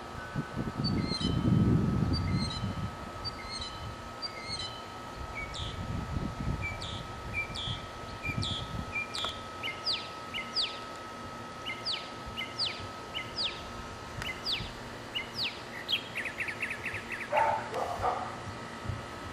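Birds singing: short high chirps, then a run of repeated down-slurred whistled notes that come faster and faster and end in a quick trill near the end. A low rumble in the first few seconds is the loudest sound, and a faint steady high tone runs under the first part.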